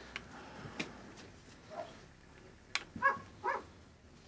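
A dog making three short whimpering yips in the background, with a few small metallic clicks from work on the revolver.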